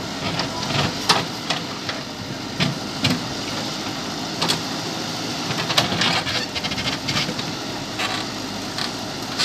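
JCB backhoe loader running steadily, with many sharp clanks and knocks scattered through, as from its bucket working in stone.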